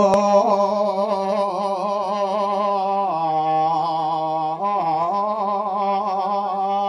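A male voice singing one long held, wavering note that steps down in pitch about three seconds in and rises back near five seconds.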